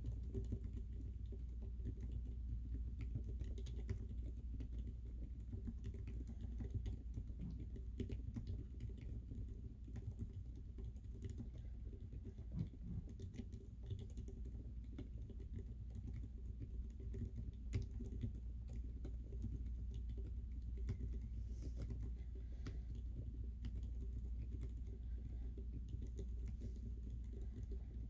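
Continuous typing on an SP50 mechanical keyboard with lubed Healios linear switches and MDA-profile Big Bang keycaps: a steady run of soft key clacks, over a faint low hum.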